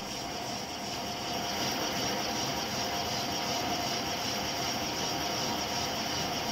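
Metal lathe turning a large gear blank while the tool faces its front: a steady machine drone with a cutting hiss and a faint held whine.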